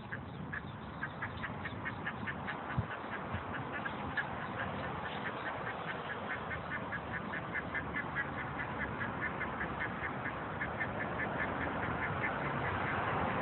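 A mother duck and her ducklings calling: a fast, unbroken run of short calls, several a second. Under them runs a steady traffic hum from the street that grows louder near the end.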